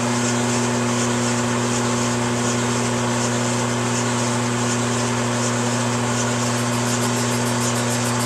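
Metal lathe running at a steady speed, spinning a 50cc two-stroke four-wheeler cylinder head in its chuck, with a constant motor and gear hum. A light, fast ticking comes in near the end.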